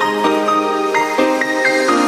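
Background music: an electronic melody of synth notes stepping from pitch to pitch.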